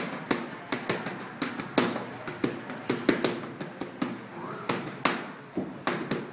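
Boxing gloves smacking against focus mitts in fast, irregular combinations of sharp slaps, about three or four a second.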